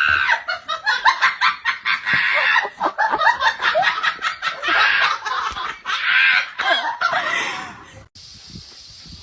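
People laughing hard in quick repeated bursts. About eight seconds in, the laughter cuts off abruptly, leaving a quieter steady hiss.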